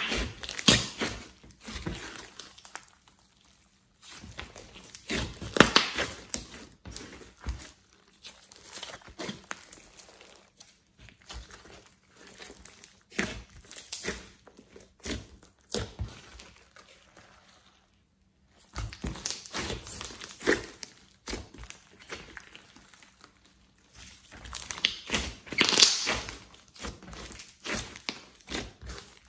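Thick orange clay-mixed slime being kneaded, pressed and stretched by hand, giving off sticky squelches with irregular clicks and crackles in bursts. The sound stops briefly twice, once a few seconds in and again just past the middle.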